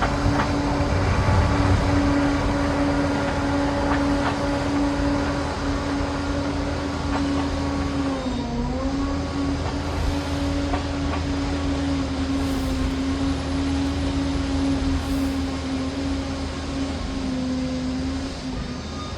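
Liebherr PR 746 Litronic crawler dozer running steadily at work, a loud constant drone with a steady whine that dips briefly in pitch about eight and a half seconds in.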